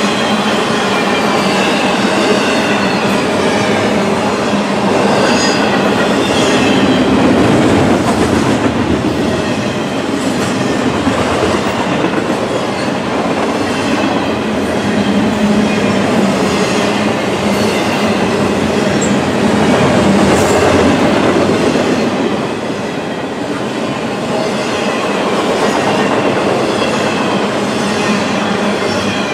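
Double-stack intermodal well cars rolling past at speed: a loud, steady rumble of steel wheels on rail, with clicks as the wheels cross rail joints.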